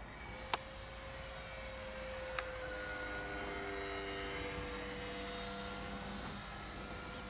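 Electric motor and propeller of an ESR Super Decathlon foam RC plane in flight: a steady thin whine that swells a little and eases slightly toward the end. Two short clicks, about half a second and two and a half seconds in.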